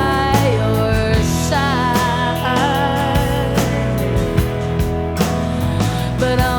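A song playing: a singer's voice over a steady beat and guitar accompaniment.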